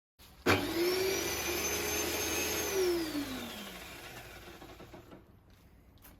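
Electric tile-cutting saw switched on and running at a steady pitch for about two seconds, then switched off, its whine falling in pitch as the blade winds down to a stop.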